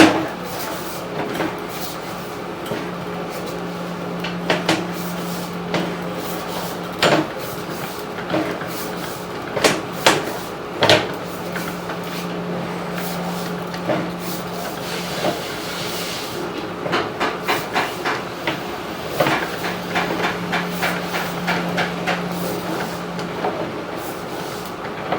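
Sewer inspection camera and its push cable knocking and clicking through the pipe, with irregular knocks and a fast run of ticks late on. A low hum starts and stops several times.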